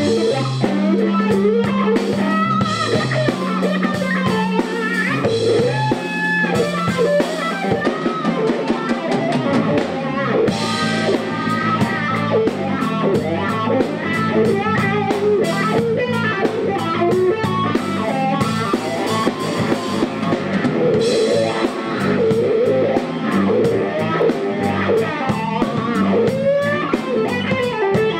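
Live instrumental band music: an electric guitar plays over a drum kit, with steady low bass notes underneath and frequent drum and cymbal hits.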